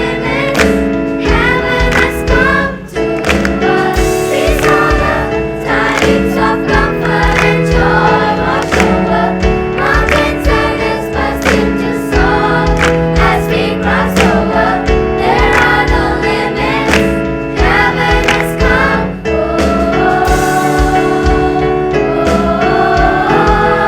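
High school choir singing in parts with instrumental accompaniment and a steady beat.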